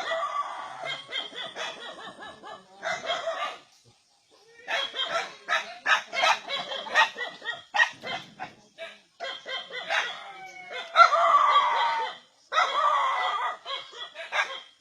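Several dogs barking repeatedly and excitedly, the village dogs' reaction to a Sumatran tiger. The barking breaks off abruptly twice, and a rooster crows among the barks.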